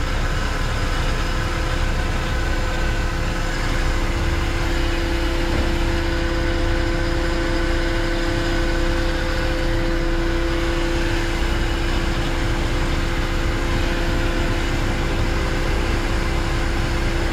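Engine-driven blower on a bulk powder tanker running steadily with a constant hum, pressurising the trailer and blowing its load up into a silo.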